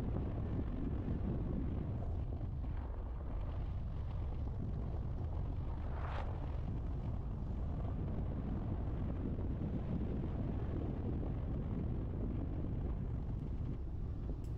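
Car driving over a broken road: a steady low rumble of engine, tyres and wind, with a brief hiss about six seconds in.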